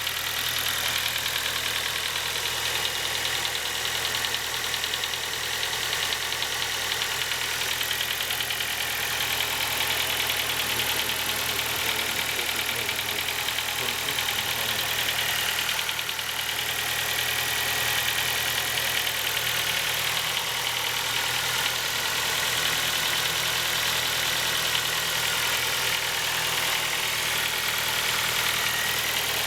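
Ford Focus 2 petrol engine idling steadily while still cold, with a knocking noise that the owner cannot place. Such noises go away once the engine has warmed up.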